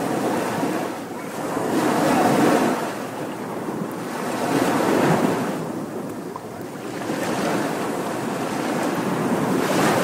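Small surf breaking and washing up a sandy beach, a steady wash of water that swells with each wave every few seconds.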